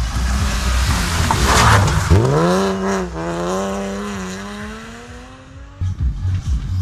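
Rally car engine at hard throttle passing on a gravel stage: the note climbs sharply as it accelerates away, then keeps rising slowly while fading into the distance. Near the end a sudden cut brings in a second rally car's engine, closer and choppier.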